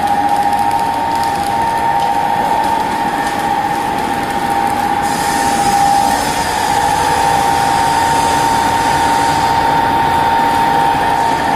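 A 48-inch bag-lift centrifuge's electric drive running: a steady high-pitched whine over a mechanical hum. A higher hiss rises above it for a few seconds midway.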